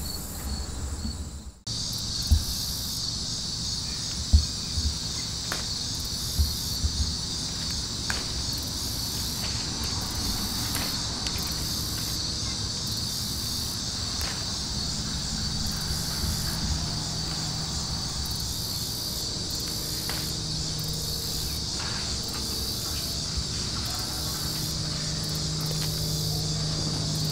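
Steady chorus of insects singing, a high, finely pulsing trill, with a few sharp knocks in the first few seconds and a low steady hum underneath that grows stronger in the second half.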